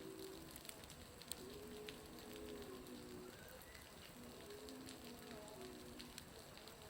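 Water falling from a building's roof and spattering below: irregular faint ticks and patters that sound much like a crackling fire.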